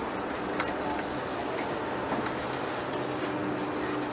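Heavy-duty lathe turning a large steel rotor shaft under a cutting tool: a steady machine hum over a continuous noisy haze, with scattered light ticks.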